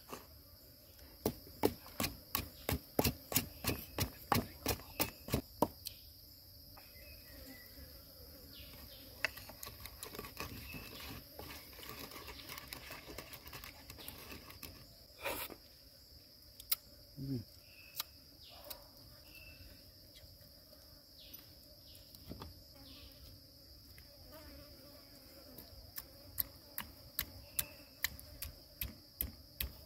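Wooden pestle pounding chili, garlic and seasonings in a mortar: a quick run of knocks about three a second, softer scattered strokes in the middle, then steady pounding again near the end. A steady high insect drone runs underneath.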